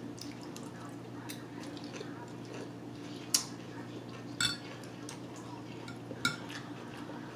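Cutlery clinking against a plate three times, the first the loudest, over a steady low hum.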